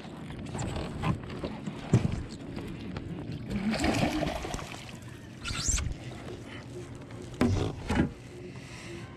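A hooked bass thrashing and splashing at the water's surface about four seconds in, with a few sharp knocks on the kayak's plastic hull.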